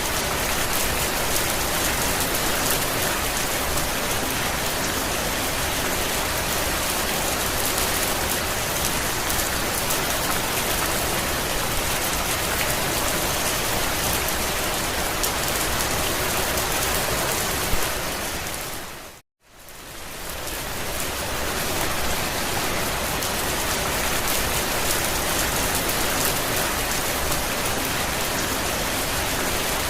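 Steady rain falling on a campervan's roof, a dense even patter. About two-thirds of the way through it fades briefly to silence and then fades back in.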